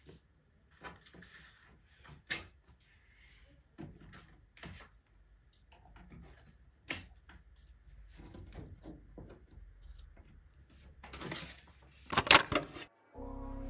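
Small clicks, taps and rustles of pegboard accessories, clips and cards being handled and hooked onto a pegboard. Two sharper clicks stand out early on the board, and a louder run of knocks comes near the end.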